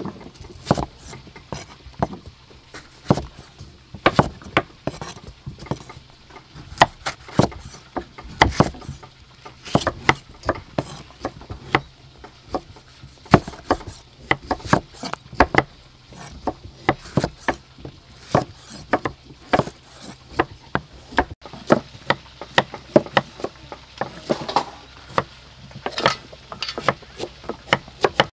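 Knife cutting tomatoes into wedges on a thick round wooden chopping board. The blade strikes the wood in irregular sharp knocks, a few a second.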